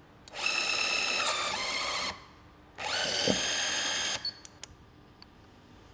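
Böllhoff E-PSG electric installation tool driving a HELICOIL coil thread insert into a tapped hole: its motor whines in two runs of about a second and a half each, with several steady tones and the pitch dropping partway through the first run. A few light clicks follow.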